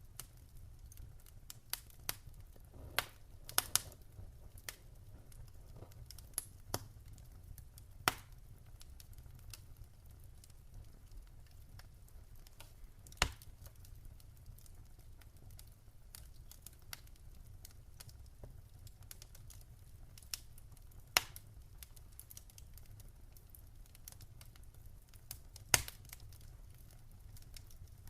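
Wood fire crackling: irregular sharp pops and snaps, a few much louder than the rest, over a low steady rumble.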